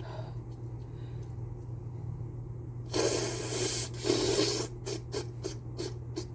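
Face mask rustling against the face with breath rushing through the fabric: two longer rushes of noise about three and four seconds in, followed by a quick run of short scrapes.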